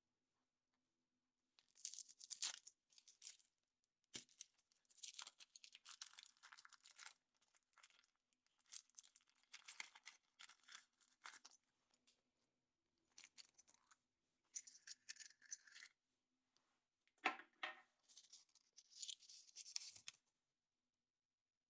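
Foil wrapper being torn and crinkled off a chocolate surprise egg, in a series of short rustling bursts with brief pauses between; it stops near the end.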